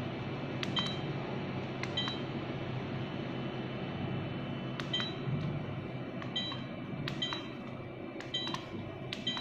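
Camcorder buttons pressed while stepping through the menu to format its SD card: each press gives a sharp click followed by a short high electronic beep, about seven times at uneven intervals, over a steady low hum.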